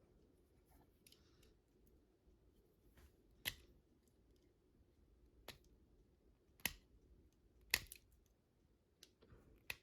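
A few sharp, scattered clicks and snips of a hand tool stripping the insulation off thin ceiling-fan motor wires, with quiet handling between them.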